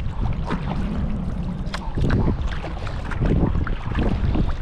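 Water splashing around a sea kayak in short irregular splashes, with wind buffeting the microphone in a low rumble.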